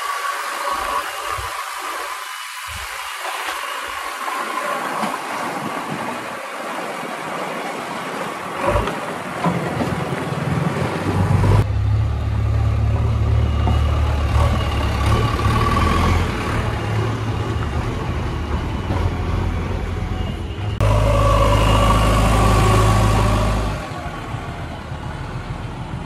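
JCB 3DX backhoe loader's diesel engine running as the machine drives past, in several spliced shots. It sounds thin and distant at first, then close and heavy from about twelve seconds in, with sudden changes in tone at each cut.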